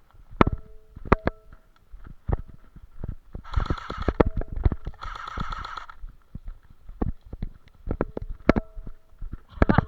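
Airsoft electric guns (AEGs) firing: two short full-auto bursts of rapid shots about three and a half and five seconds in, with scattered single sharp snaps before and after.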